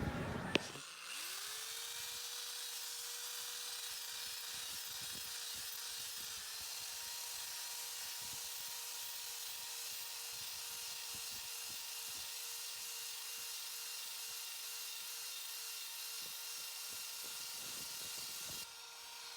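Electric drill with a sanding attachment switched on with a click, spinning up to a steady whine and running with a hiss while it sands the inside of a cast iron wok. The hiss drops shortly before the end, and the drill's whine starts to wind down right at the end.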